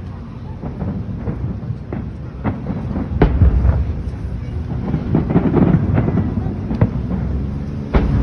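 Aerial fireworks bursting in quick succession: repeated sharp bangs over a continuous low rumble. The heaviest boom comes about three seconds in, and another loud one near the end.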